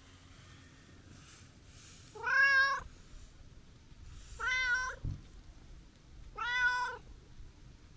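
A brown-tabby-and-white cat meows three times, two seconds or so apart. Each meow is a clear, drawn-out call lasting about half a second: chatty meows aimed at a person it knows.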